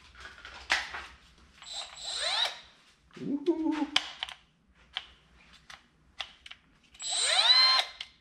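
A cordless 3-inch cut-off tool's motor triggered briefly twice with no load, each time whining up in pitch and then stopping. The second run, near the end, is the louder. Clicks and a short rattle from handling the tool come in between.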